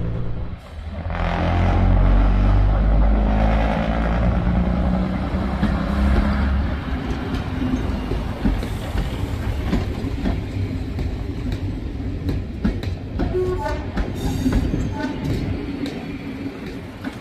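Heritage diesel multiple unit railcar under way, its diesel engine running and its wheels on the rails. The engine is loudest in the first few seconds, then eases to a steadier, quieter running noise.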